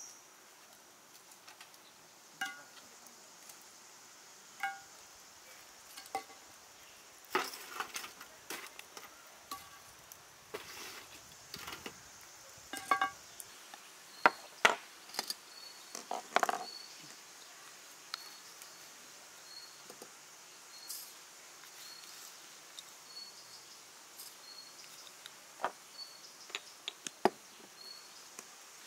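Scattered clinks and knocks of kitchenware, a few of them ringing briefly, the sharpest in the middle. Behind them is a faint steady high hum and, from about halfway in, a faint high chirp repeating about once a second.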